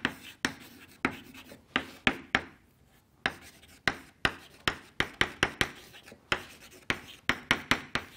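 Chalk tapping and scratching on a blackboard as block capitals are printed: quick, irregular sharp taps, several a second, with a short pause about three seconds in.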